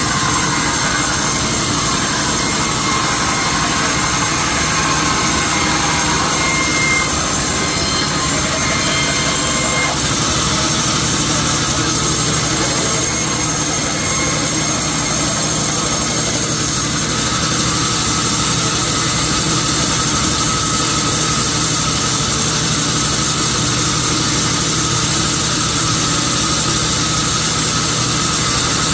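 Sawmill machinery running steadily: a dense mechanical noise with steady high tones, and a falling whine over the first few seconds.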